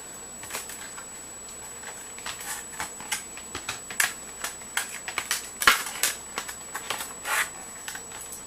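Hands opening the retail packaging of a silicone iPod case: irregular clicks, taps and crinkles, with one louder click a little past the middle.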